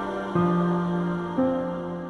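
Slow, soft background music of sustained chords, with new notes entering about half a second and a second and a half in, and the music fading down near the end.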